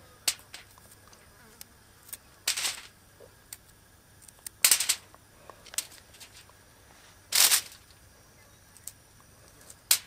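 Garlic clove being sliced by hand with a small knife over aluminium foil: three short crisp cuts a couple of seconds apart, with light ticks as slices drop onto the foil.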